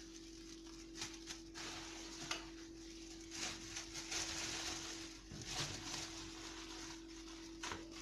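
Kitchen handling sounds while ingredients are added to a pot: a few light knocks and clinks, and two longer hissing, rustling stretches in the middle, over a steady low hum.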